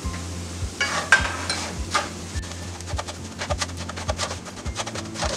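Wooden slotted spatula stirring and scraping semolina, fried onions and cashews around a nonstick pan, in irregular scrapes and taps over a light sizzle. The semolina is being roasted in a little oil over a low flame.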